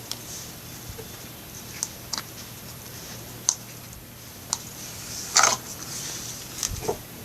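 Slime being worked by hand, making scattered sticky clicks and pops, the loudest a longer crackling squelch about five and a half seconds in.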